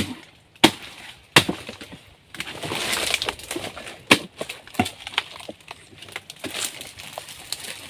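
A machete chopping into a still-hard, partly rotten tree stump: a handful of sharp, separate strikes, with crackling and splintering of wood and dry palm fronds in between as pieces are broken away.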